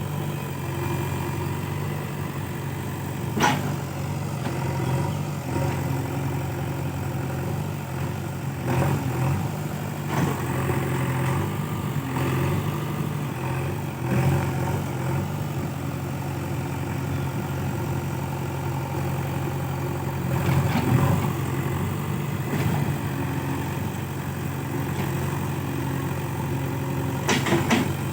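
JCB 3DX backhoe loader's diesel engine running steadily, with a few short sharp knocks or clanks scattered through.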